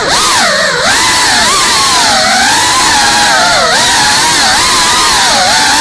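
GEPRC Cinelog 35 cinewhoop FPV drone's brushless motors and ducted propellers whining, the pitch swinging up and down quickly and continually as the throttle is worked in fast flight, with a sharp dip right at the start.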